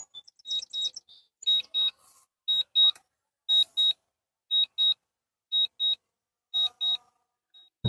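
Drone remote controller beeping in quick pairs of the same high tone, about one pair a second, while the drone returns home and comes in to land.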